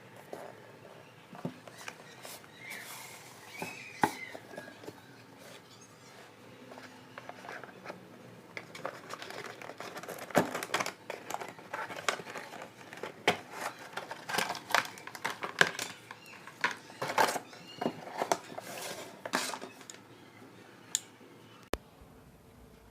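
Irregular clicks, taps and light clatter of small hard objects being handled, sparse at first and coming thick and fast through the middle.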